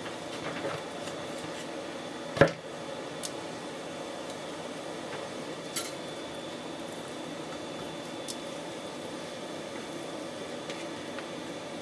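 Stir-fry cooking in the pan with a steady low hiss as noodles are tipped in and mixed, with one sharp knock of a utensil against the pan about two and a half seconds in and a few lighter taps later.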